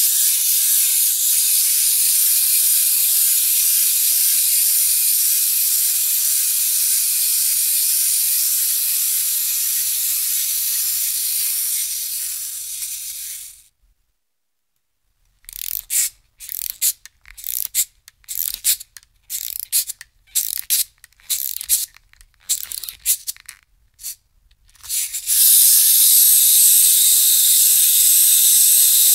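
Wind-up toy's clockwork spring mechanism whirring with a high, hissy sound for about 13 seconds, then slowing and stopping. After a short pause come about ten seconds of irregular ratcheting clicks as the key is wound, and near the end the mechanism starts whirring again.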